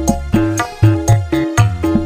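Backing music with kendang and drum-kit hits tapped out on a smartphone drum app, a steady beat of about four hits a second over sustained bass and melody notes.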